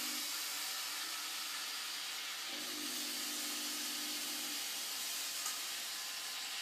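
Steady hiss of a smoke effect blowing out of the mouth of a home-made dragon clock prop, with a low hum coming in for about two seconds midway.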